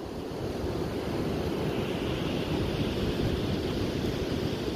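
Surf washing steadily on a sand beach, with wind rumbling on the microphone; it grows a little louder about a second in.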